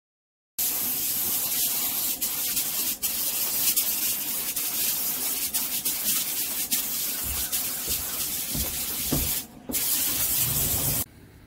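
Compressed-air spray gun hissing steadily as it sprays coating onto a column, with a brief break about nine and a half seconds in and stopping shortly before the end. A few low bumps come in over the last few seconds.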